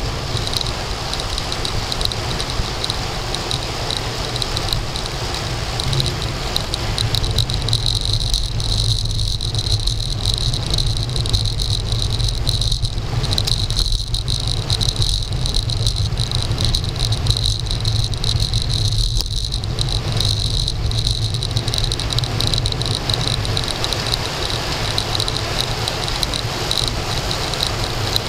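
Wind rushing over a handlebar-mounted SJ1000 action camera and road rumble from a road bicycle descending at speed, with a steady high-pitched shrill running through it.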